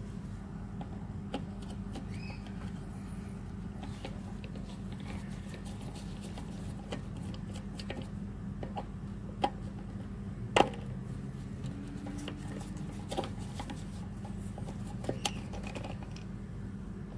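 Screwdriver clicking and scraping against the metal parts of a lawnmower engine, scattered light clicks with one sharper click about ten and a half seconds in, over a steady low hum.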